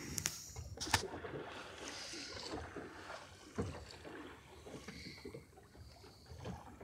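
Water washing and lapping along the hull of a small sailboat under sail, with light wind. There are two sharp clicks in the first second and a soft knock midway.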